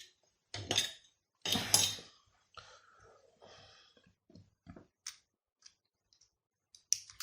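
Small plastic parts of a taken-apart Xbox controller being handled on a hard surface: two short scraping knocks in the first two seconds, then scattered light ticks.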